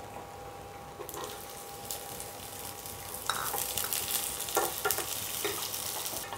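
Chopped onions, garlic and curry leaves sizzling in a little hot oil in a pan. The sizzle grows about a second in, and a spatula knocks against the pan several times as they are stirred.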